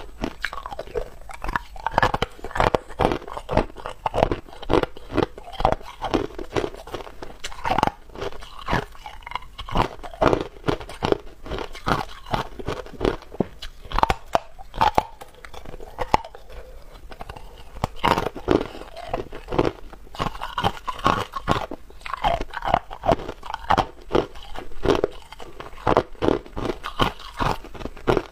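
Hard ice being bitten and chewed, close to a clip-on microphone: a dense, irregular run of sharp cracks and crunches, several a second.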